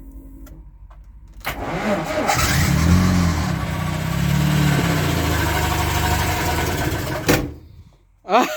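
A VAZ-2106 Zhiguli four-cylinder petrol engine is cranked and catches about a second and a half in. It runs unevenly, its speed rising and falling, for about five seconds, then cuts out suddenly. This is the first start after the knock repair, and the engine starts and immediately stalls.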